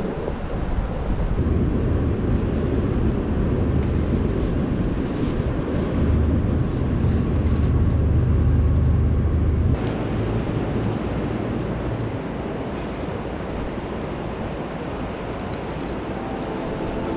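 A motor running steadily with a low hum, heard under wind and water noise. The hum drops away suddenly about ten seconds in.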